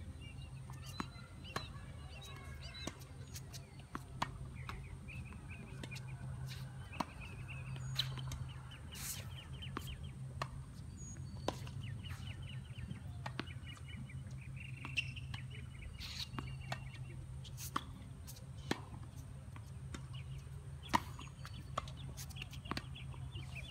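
Tennis ball rally: sharp pops of rackets striking the ball and the ball bouncing on the hard court, every second or so. Birds chirp in repeated trills throughout over a steady low hum.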